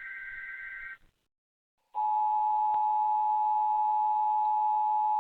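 An Emergency Alert System SAME header data burst, a harsh two-tone digital screech, cuts off about a second in. After a second of silence, the EAS two-tone attention signal (853 and 960 Hz) starts, much louder, and holds steady. This is the start of a required monthly test.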